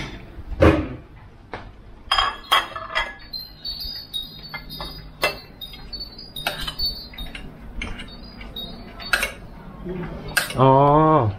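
Kitchen utensils clinking and tapping against plates and a pan in scattered sharp knocks, as fried chicken drumsticks are handled for saucing. A short drawn-out voice sound comes near the end.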